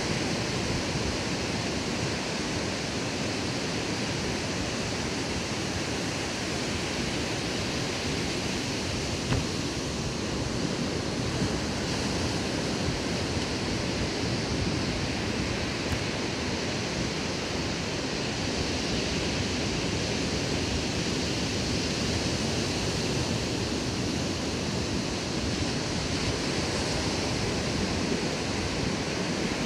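Ocean surf breaking on the shore, a steady rushing wash that swells and eases gently.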